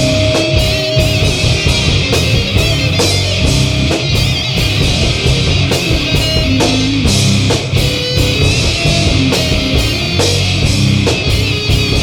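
Stoner metal band playing live: loud, heavy electric guitar riffing over bass and a steady drum beat.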